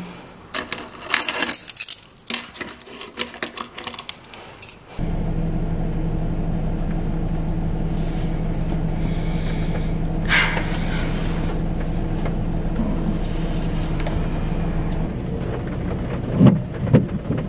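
Keys jangling and clinking as a bunch of keys is picked up off a table. About five seconds in, this gives way abruptly to a car engine running steadily, heard from inside the cabin as a low hum. Two dull knocks come near the end.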